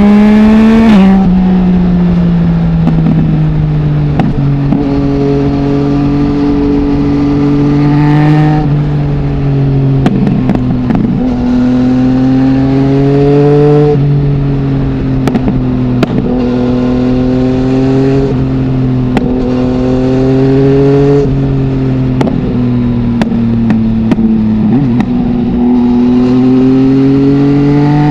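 Yamaha MT-09's inline three-cylinder engine through an Akrapovic full exhaust system without its dB killer, pulling and easing off: the engine note rises and falls with the throttle, dropping sharply about a second in and several times after. A few light clicks sound over it.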